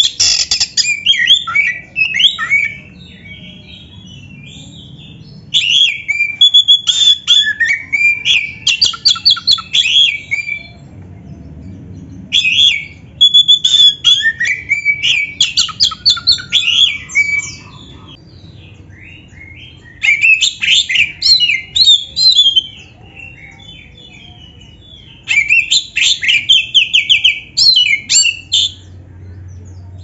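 Black-breasted oriental magpie-robin (kacer) singing: five loud bouts of rapid, varied whistles and chattering notes, each a few seconds long, with short pauses between.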